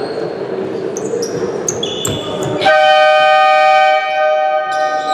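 A loud horn sounds about two and a half seconds in, holding for over a second before its tone fades away. Before it come short high squeaks and a ball bouncing over the murmur of the hall.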